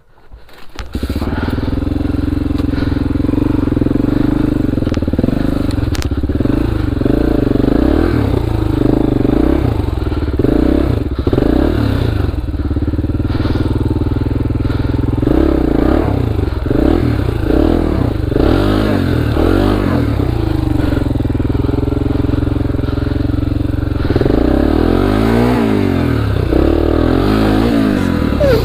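2002 Honda XR400R's single-cylinder four-stroke engine starting about a second in, then running with the revs rising and falling again and again.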